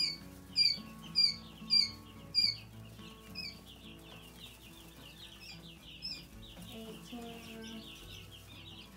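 A brood of week-old quail chicks peeping: a run of loud, high, downward-sliding peeps about every half second for the first two and a half seconds, then many fainter overlapping chirps.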